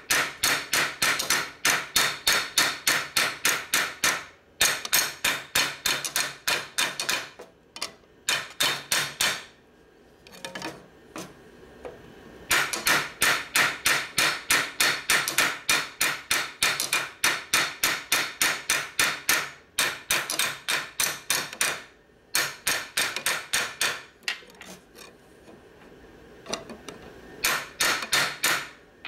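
Ball-peen hammer striking a steel Harley shovelhead clutch shell, sharp metal-on-metal blows about four a second. The blows come in runs of a few seconds with short pauses between, the longest pause about ten seconds in.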